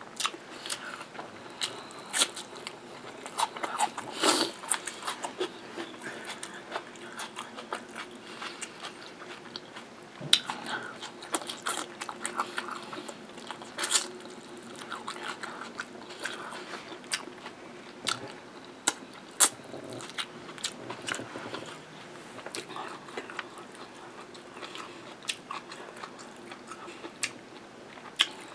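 Close-miked chewing and biting of mutton curry eaten by hand, with many short, sharp, wet mouth clicks and occasional crunches.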